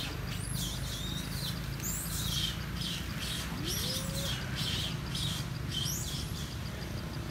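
Birds chirping in the trees: a quick series of short, high-pitched calls, about two a second, with one lower rising call near the middle, over a steady low rumble.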